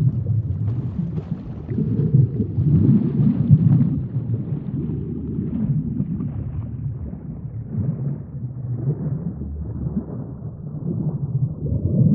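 Sea ambience: a low rumble of moving water that swells and eases every couple of seconds, with a faint crackle above it.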